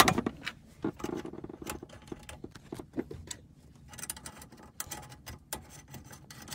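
Irregular small clicks and taps of hands handling plastic and metal parts around a hybrid battery's cover.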